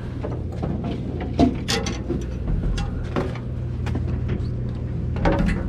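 A fishing boat's engine running with a steady low hum, with a few sharp knocks and clicks on top, the loudest about a second and a half in.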